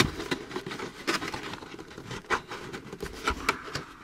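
Cardboard lid being worked off a tight-fitting model kit box: irregular scraping and rubbing of cardboard on cardboard, with scattered light taps and clicks.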